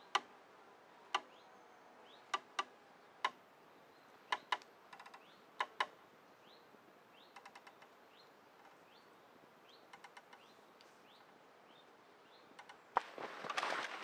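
Scattered sharp clicks and short creaks from a hanging swing chair of wooden rungs and hemp string under a sitter's weight, with a bird's faint repeated rising chirps. Near the end a knock and rustling as the sitter climbs out of the swing.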